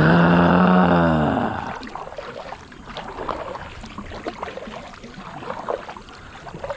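A long, low groaning tone for about a second and a half at the start, its pitch rising slightly and then falling. After it come irregular light splashes and knocks of a kayak being paddled through shallow water.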